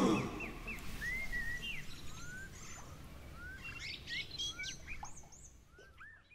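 Garden birds chirping and calling: a string of short, quick whistled notes, some dropping and some rising in pitch, over a low background hum, fading out near the end.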